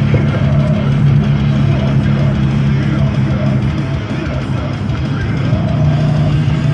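Music playing inside a car's cabin.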